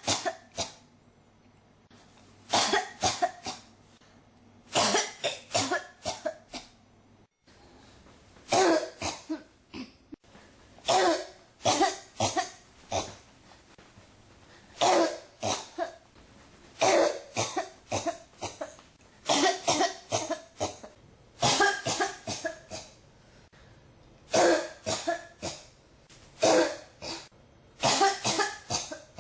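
A person coughing in a fit that won't stop: bursts of three to five harsh coughs in quick succession, one burst every two seconds or so, with short breaths between.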